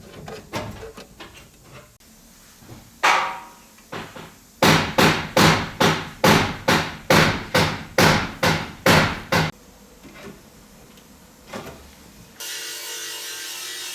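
Hammer blows on a steel repair panel for a car's rear wheel arch: light taps, a couple of single strikes, then a run of about a dozen evenly spaced blows at roughly two and a half a second as the new piece is knocked into shape and place. A steady hiss comes in near the end.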